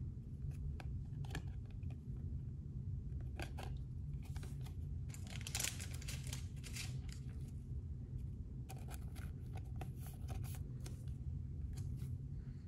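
Trading cards and foil card packs handled by hand: scattered short rustles, crinkles and light clicks, over a steady low hum.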